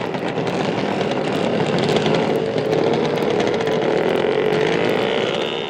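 A small engine running steadily at high revs, its pitch climbing slightly in the last second or so.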